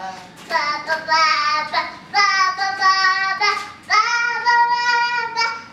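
A small girl singing a song on her own, a run of notes with several long held ones.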